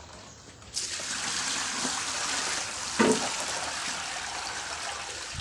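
Water being poured out of a tilted plastic basin onto a concrete floor: a steady rushing pour that starts about a second in, with a short knock or splash about three seconds in.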